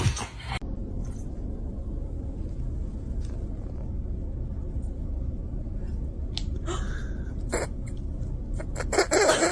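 Steady low rumble of indoor room noise, with a few faint short knocks or clicks in the second half.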